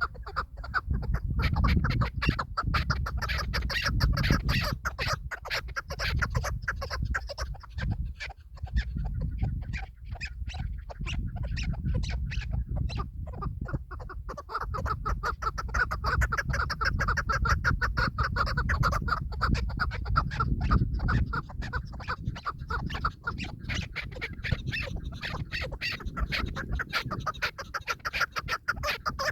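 Chukar partridges calling, a continuous run of rapid, repeated clucking notes, over a low rumble.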